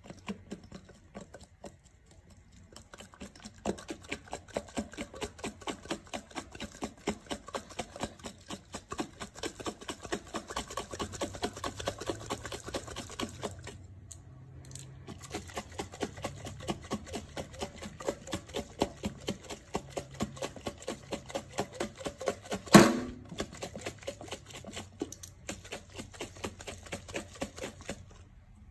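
Heavy whipping cream being shaken hard in a glass mason jar, about three shakes a second, the thickening contents thudding inside the jar as the cream firms up into butter. The shaking stops briefly about 14 seconds in, and there is one louder knock about 23 seconds in.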